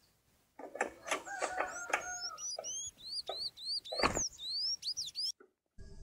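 A small songbird sings a quick series of squeaky, rising whistled notes, two or three a second, mixed with sharp taps and clicks. The sound drops out briefly near the end.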